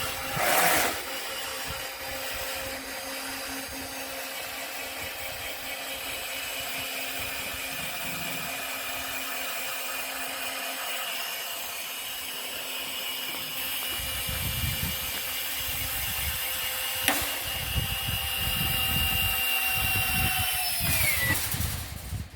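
Mighty Mule automatic gate opener's electric motor and drive arm running with a steady whine, making a noise that the owners put down to bolts needing tightening. A single sharp click comes about 17 seconds in, a low rumble joins in the later part, and near the end the whine falls in pitch and stops.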